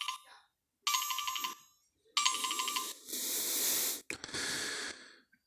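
A Nokia E5-00 ringtone playing through the phone's small speaker: a short pulsing electronic phrase repeated three times, then about a second of hiss-like noise and one more short burst.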